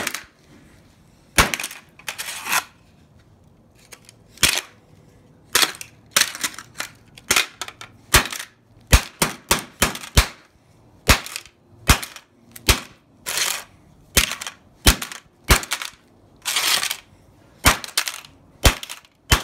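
Hammer repeatedly smashing an aluminium drink can on a concrete floor: sharp metallic blows, a few with a longer crunch. The blows are sparse at first, then come faster, about two a second, from about six seconds in.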